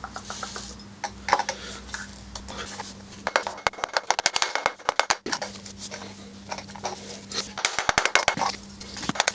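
Hand tools clinking and rattling against the metal of a motorcycle exhaust silencer as its baffle is worked on, in two quick clusters of sharp metallic clicks about three seconds in and again near the end.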